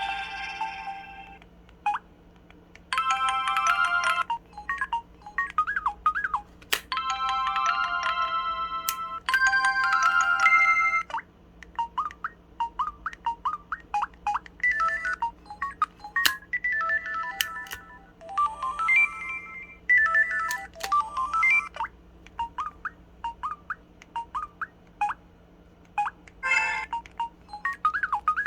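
Samsung SPH-W8300 "Magic Hole" phone playing its built-in sound effects one after another: short electronic jingles of a second or two each, some with warbling up-and-down pitch glides, separated by brief pauses.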